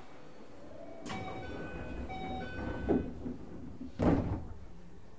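Keio 8000 series passenger doors: a door chime sounds twice, then the doors close with a loud thud and a hiss of air about four seconds in.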